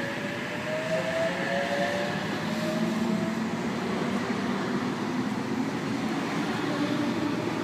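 Oscar H-set electric intercity train pulling away from the platform. Its traction motors give a rising whine over the first few seconds as it gathers speed, and the rumble of its wheels on the rails builds about a second in.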